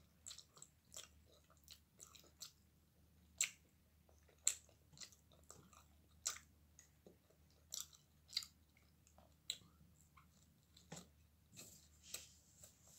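Close-up chewing of pizza crust with the mouth closed: irregular soft wet clicks and smacks, a few of them sharper and louder.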